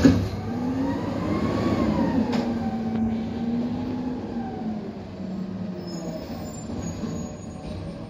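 A loud metal bang, then an automated side-loader garbage truck's natural-gas engine revving up and falling back under the hydraulic arm's load, with a steady whine. The engine then settles and fades as the truck pulls away.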